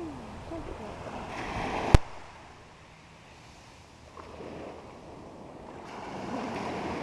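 Ocean surf and wind noise on the microphone, cut by one sharp click about two seconds in. After the click it drops quieter, then builds again near the end.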